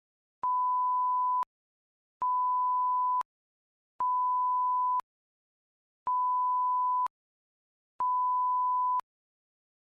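Five electronic beeps, each a single steady tone about a second long, about two seconds apart, with dead silence between them.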